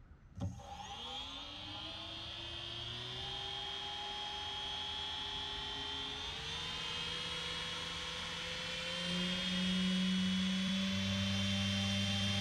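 Small brushless motor spinning up a three-blade propeller fitted with a 3D-printed guard ring on its blade tips. It starts with a rising whine about half a second in, then runs steadily, its pitch creeping up and the sound getting louder in steps as the throttle is raised.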